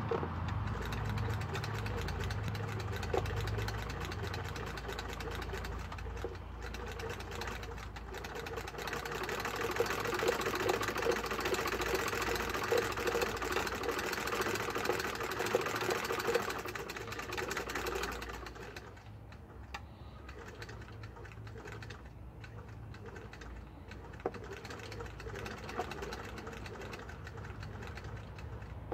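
Antique Singer sewing machine turned by a hand crank, its needle bar and shuttle mechanism clattering steadily. About two-thirds of the way through the sound drops to a much quieter, sparser ticking.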